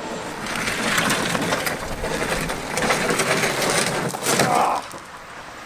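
A snowmobile being dragged over gravel, its skis and underside scraping and crunching across the stones, stopping near the end.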